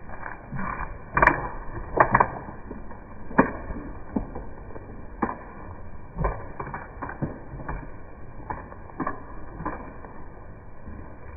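Irregular knocks and clicks, about a dozen spread unevenly over several seconds, the loudest one to two seconds in, over a low steady hiss.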